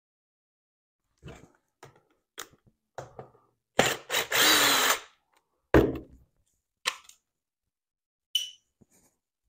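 Cordless impact driver running for about a second, backing a Torx screw out of a plastic trimmer engine housing, among small handling clicks and knocks. A loud thump follows, and near the end a small metal screw clinks into a steel parts tray.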